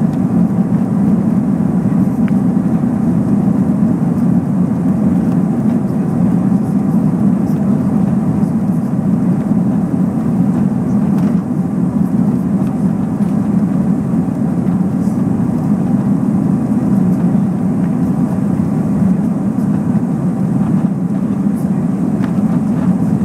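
Steady jet engine roar from an Airbus A340-300's four CFM56 turbofans, a deep even rumble with faint whining tones above it.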